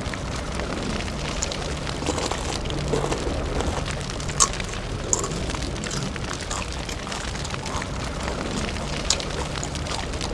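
Fire sound effect: a steady rushing flame noise with a low rumble and scattered crackles.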